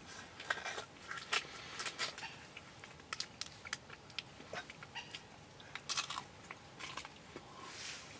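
Foil-lined snack bar wrapper crinkling and a person chewing a Nature Valley sweet-and-salty nut bar, with irregular sharp crackles throughout.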